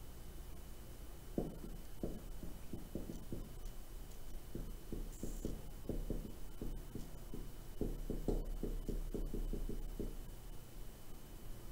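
Dry-erase marker writing on a whiteboard: a run of short, quick strokes that starts about a second and a half in and stops near the end, over a faint steady hum.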